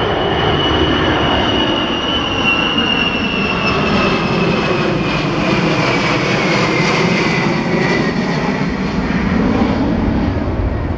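Beriev A-50 airborne early-warning jet passing low overhead, its four turbofan engines giving a steady rumble with a high whine that slowly falls in pitch as it goes by.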